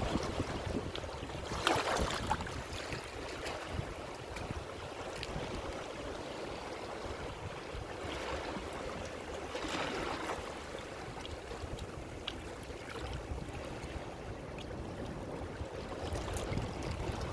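Ocean waves breaking and washing up a shore, with two louder surges of foaming water about 2 seconds and 10 seconds in, over a steady low rumble of surf.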